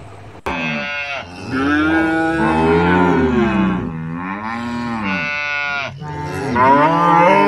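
Ankole-Watusi cattle mooing: several long, drawn-out lows one after another, each rising and falling in pitch, starting abruptly about half a second in.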